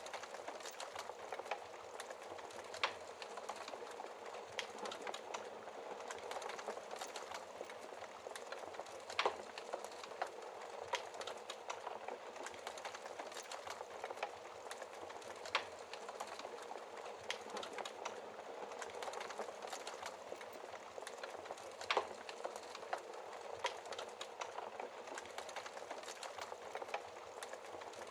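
Wood fire crackling in a fireplace: a steady hiss full of small crackles, with a handful of louder, sharper pops from the burning logs.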